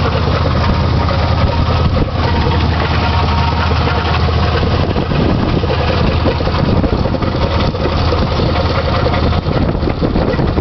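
Chevy S10's 4.3-litre Vortec V6 idling steadily with a rattle from the front of the engine by the crankshaft, which the owner suspects is the crankshaft or timing chain.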